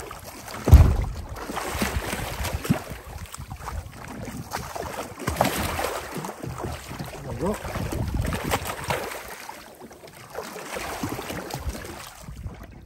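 Blue shark thrashing at the surface right beside a small boat's hull, water splashing again and again, with a loud thump about a second in.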